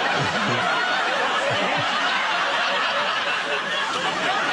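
Studio audience laughing, a steady wash of many voices.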